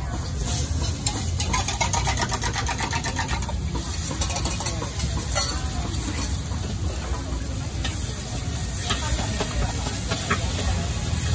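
Beaten egg sizzling and crackling in hot oil in a wok, over a gas wok burner running with a steady low rumble. A few sharp clicks of the metal ladle against the wok come later, as the egg is stirred.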